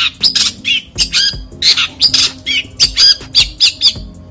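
Caged long-tailed shrike (cendet) calling in a fast run of short, harsh, scratchy notes and squawks, some with quick bending whistles, about three or four a second, pausing briefly near the end.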